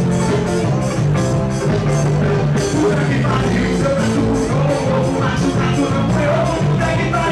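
Loud, upbeat music with a fast steady beat.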